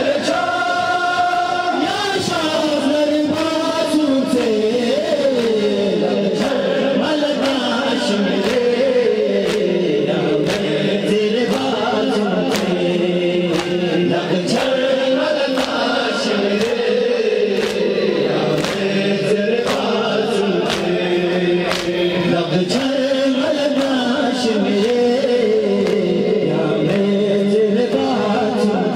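A crowd of men chanting a Muharram mourning lament (noha) together in a sung, rising and falling line. It is accompanied by a regular beat of sharp strikes from hands hitting chests in matam.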